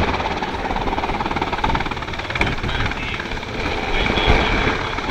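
Sikorsky UH-60 Black Hawk helicopter flying low overhead, its four-bladed main rotor beating rapidly and steadily over the whine of its turbine engines.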